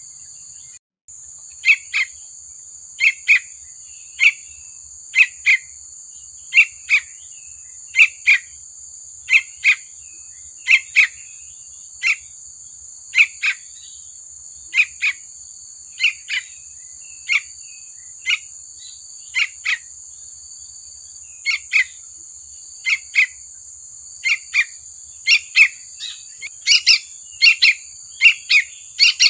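Young sooty-headed bulbul (trucukan) calling: short chirps, mostly in pairs, repeated about once a second and coming faster near the end, over a steady high-pitched whine.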